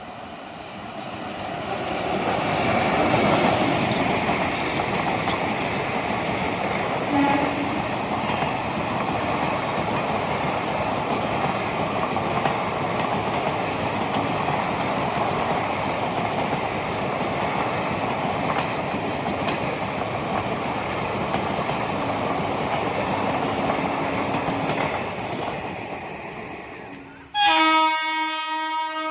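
Express train hauled by a WAP-4 electric locomotive passing at speed: a steady rush of wheel-on-rail noise that builds over the first couple of seconds and fades near the end. A train horn then sounds in one loud blast.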